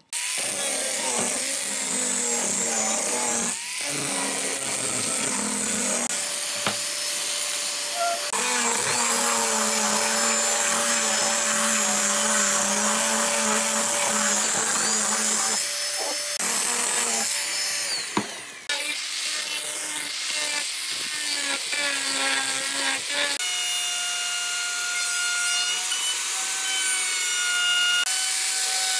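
Angle grinder with a sanding disc running and sanding pine, its whine dipping in pitch as it is pressed into the wood. Near the end a plunge router takes over, running with a steady high whine as its bit cuts into the pine board.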